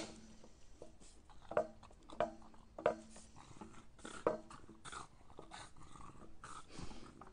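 A small dog making short, faint grunts and whimpers, again and again, while trying to get a stick held crosswise in its mouth through a narrow gate.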